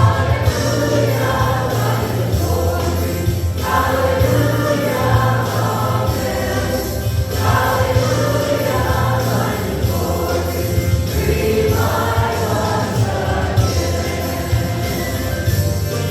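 Worship music in a church service: a group of voices singing a hymn in lines a few seconds long over a steady bass accompaniment.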